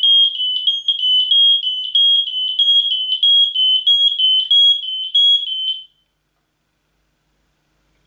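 Hekatron Genius Plus X radio-linked smoke detector sounding its loud, shrill alarm, the tone stepping between two close pitches about three times a second. It cuts off suddenly about six seconds in.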